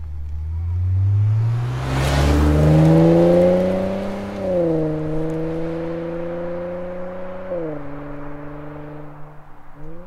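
Nissan Fairlady Z RZ34's twin-turbo 3.0 L V6 (VR30DDTT) running through an HKS full dual muffler in silent mode. It accelerates hard past the camera, its pitch climbing, then shifts up twice, about four and a half and seven and a half seconds in. After that it fades as it pulls away.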